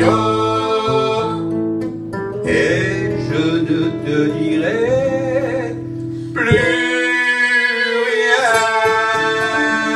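Live French chanson: a man and a woman singing long held, wavering notes over acoustic guitar accompaniment. A new held note comes in about six and a half seconds in.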